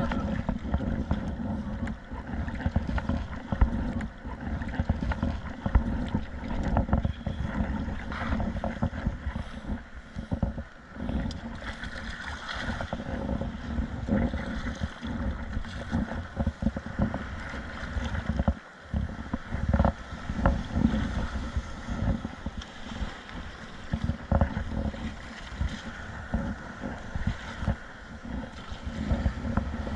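Wind buffeting the microphone, with waves and water sloshing and splashing around a kayak at sea. There are irregular gusts and scattered short splashes or knocks throughout.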